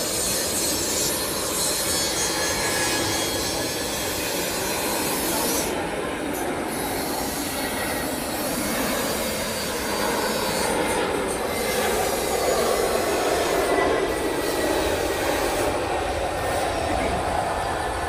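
Airbus A320's jet engines on final approach: a steady noisy whine that grows louder past the middle as the aircraft passes close, running on to touchdown.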